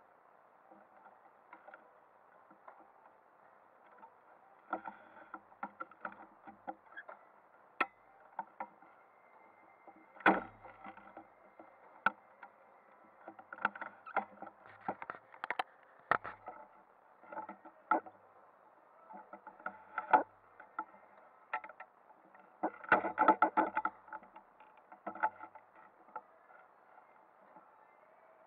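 Scattered muffled knocks and clicks over a faint steady hiss, with a louder cluster of knocks about three quarters of the way through.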